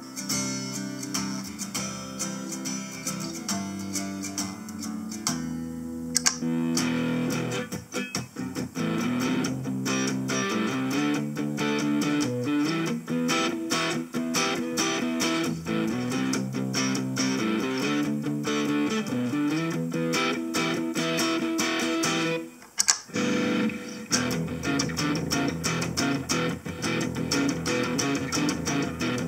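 Electric guitar played through a Harley Benton DNAfx GiT multi-effects processor, sounding its preset tones. The sound changes character about six seconds in, and again after a brief drop about three-quarters of the way through.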